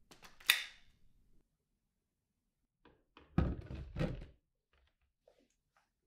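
A sharp click as the wand snaps onto a Dyson V12 Detect Slim cordless vacuum. Then, about three and a half seconds in, two low clunks as the vacuum is set into its wall-mounted dock.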